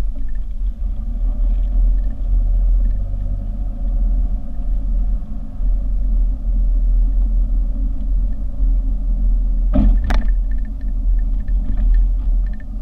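Car driving, with a steady low rumble of road and engine noise. A sharp knock or thump comes about ten seconds in.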